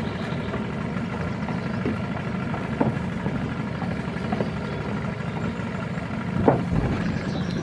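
A steady low hum like an idling engine, with a few light knocks of footsteps on wooden stairs, the loudest about six and a half seconds in.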